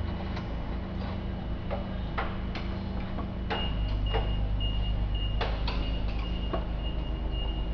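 Scattered sharp clicks and ticks over a steady low hum, with a high electronic beeping tone that starts about three and a half seconds in and keeps pulsing.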